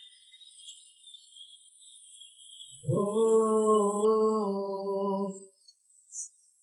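A woman humming one steady, held note for about two and a half seconds, starting about three seconds in.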